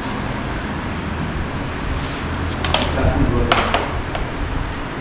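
Workshop background of indistinct voices, with a few sharp metallic clicks and knocks from tools or parts being handled about halfway through.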